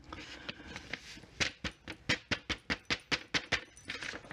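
Glitter being tapped off a folded paper sheet into its jar: a soft paper rustle, then a quick run of about a dozen light taps, roughly five a second.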